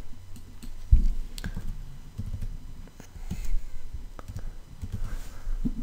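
Computer keyboard keystrokes and mouse clicks, scattered and irregular, as numbers are typed into a dialog box. A low thump stands out about a second in.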